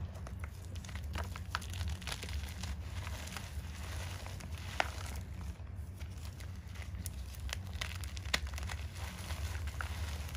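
Powdery chalk being crushed and crumbled by hand: a steady run of soft crunches and small crackles, with two sharper snaps about five and eight seconds in, over a steady low hum.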